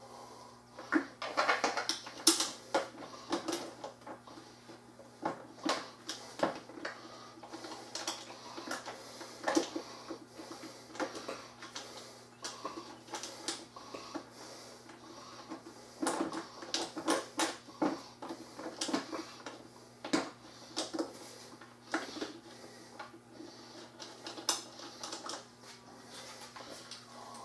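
Irregular clicks, knocks and rattles of hard plastic parts of a Greenworks electric pressure washer being handled and fitted together by hand, with a white plastic tank being pressed onto the frame.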